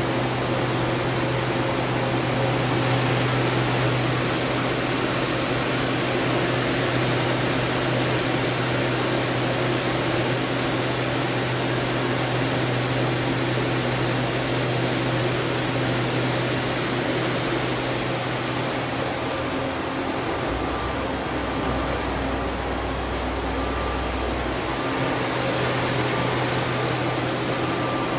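Doosan Puma 2000SY CNC lathe running: a steady mechanical hum with several thin high whining tones over it. Past the middle a deeper hum joins for about four seconds, then drops away.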